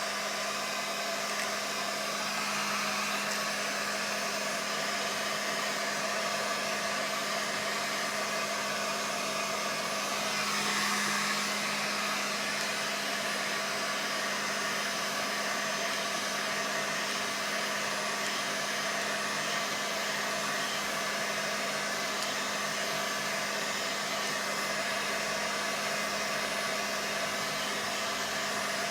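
Hand-held hot-air blower running steadily, a motor hum over rushing air. It is preheating a sound-deadening sheet and the car's floor panel so the adhesive bonds in the cold.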